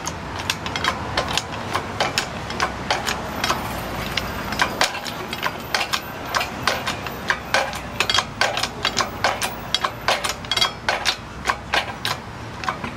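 Engine hoist being jacked up by hand to lift an outboard motor off a boat's transom: a run of sharp clicks and clanks, a few each second, from the hoist's pump handle and chain.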